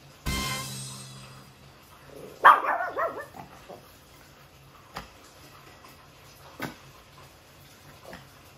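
Chihuahua barking a few quick times, about two seconds in. Just before, a sudden loud ringing hit fades out over about a second, and a couple of sharp clicks follow later.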